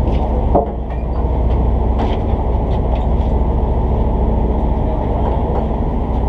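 Steady low rumble of a fishing boat's engine running, with a few faint short clicks on top.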